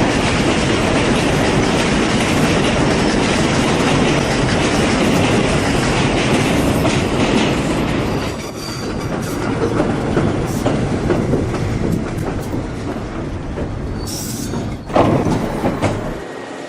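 New York City subway train running through a station, wheels clattering over the rail joints, loud and continuous with a brief louder burst near the end before it fades away.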